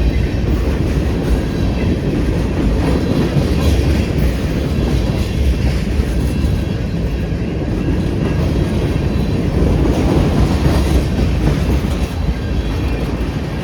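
Freight train cars rolling past close by: a steady, loud rumble of wheels on rail that eases slightly near the end.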